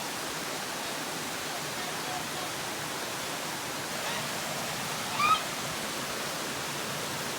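Steady rushing of a small waterfall, with a short vocal exclamation about five seconds in.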